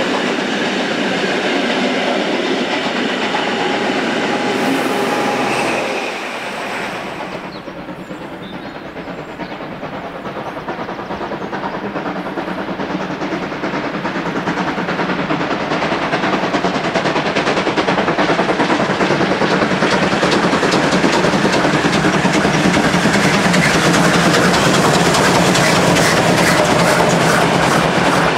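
Passenger train of three-axle Umbauwagen coaches hauled by the class 38 (Prussian P8) steam locomotive 38 2267, its wheels clattering over the rail joints as the coaches run past close by. About six seconds in it drops quieter, then the approaching train grows steadily louder until its wheels are clicking over the joints right alongside.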